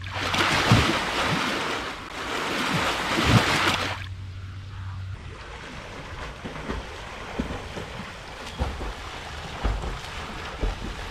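Pond water splashing in two loud bursts of about two seconds each, then a fainter stretch with wind buffeting the microphone.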